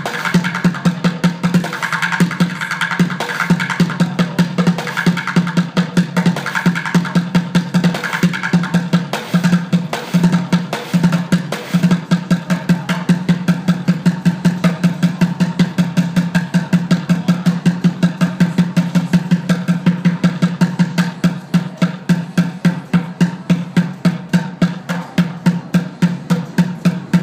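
Upturned plastic buckets drummed with drumsticks in a fast, steady beat of about five strokes a second.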